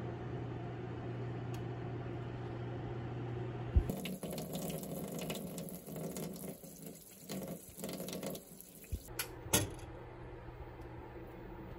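A steady low hum from a running oven. About four seconds in, a tap runs and potatoes are rubbed clean under the water for about five seconds. Then come a couple of light knocks, and the hum returns.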